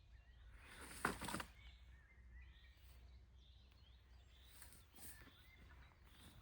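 Quiet forest ambience with faint bird chirps and a low rumble. A brief cluster of sharp clicks or crackles comes about a second in.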